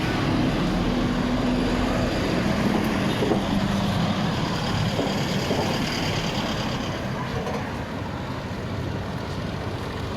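Street traffic: motor vehicles running past, a steady engine-and-road noise that eases off in the second half.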